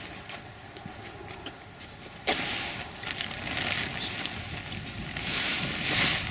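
Air rushing out of a collapsing 10x10 all-weather tent as its legs are pushed together. It starts suddenly about two seconds in and comes in uneven gusts, loudest near the end.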